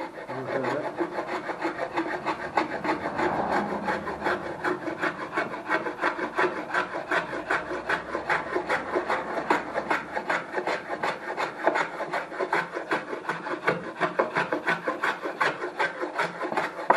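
Homemade wooden hand plane shaving a small board in quick, even, repeated strokes: its first test cuts.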